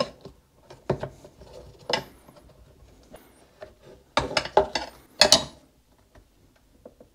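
Plastic air filter box parts being pushed and worked into a dirt bike subframe: scattered light clicks and rubbing, with a quick run of louder knocks about four to five seconds in.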